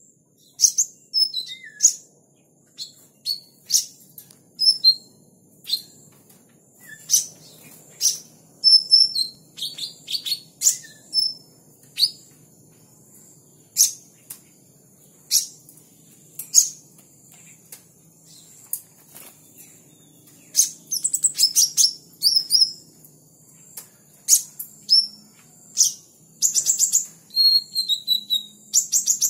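Caged kolibri ninja (van Hasselt's sunbird) calling: a string of sharp, high chips and quick down-slurred notes, irregularly spaced, breaking into faster twittering runs about two-thirds of the way through and again near the end.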